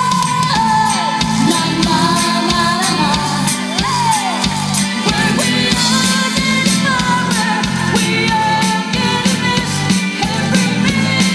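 Live band playing: a woman singing into a microphone over electric guitar, keyboards and a Sonor drum kit keeping a steady beat.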